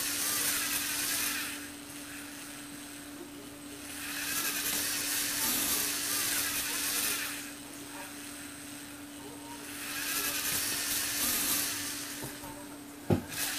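Small Lego Technic electric motor driving a gear train and scissor-lift, whirring in three runs of a few seconds each with short pauses between, over a faint steady hum. A sharp click near the end.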